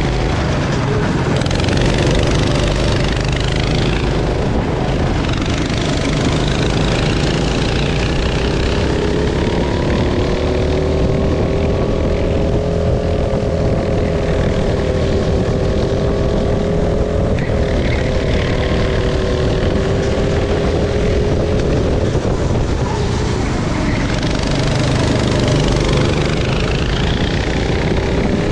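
Go-kart engine running under steady throttle with a heavy low rumble. Its pitch climbs gradually, holds for a long stretch, dips briefly about three quarters of the way through, then rises again near the end.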